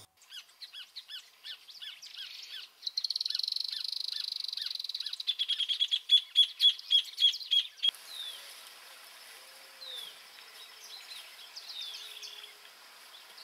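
Songbirds calling: a run of repeated high chirps, then a fast high trill, then loud sharp notes at about four a second. Near eight seconds in the sound changes abruptly to a few quieter, downward-sliding whistled notes.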